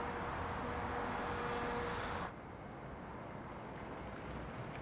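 Steady city background noise, a distant traffic wash with a faint steady tone in it. About two seconds in it cuts abruptly to a quieter, duller indoor room tone.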